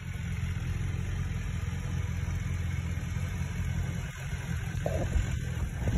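BMW S 1000 R's inline-four engine idling steadily, a low rumble heard from a distance.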